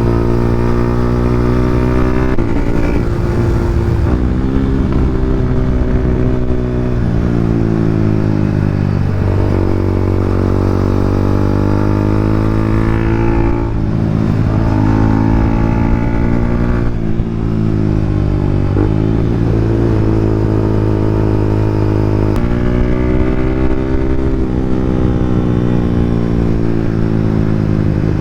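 Yamaha Sniper 150's single-cylinder four-stroke engine running through an open EXOS R6 exhaust pipe with no silencer, its pitch climbing again and again and dropping back or breaking off every few seconds as it is revved.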